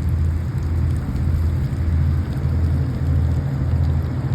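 Steady rain, heard as an even hiss, over a loud low rumble that wavers in strength.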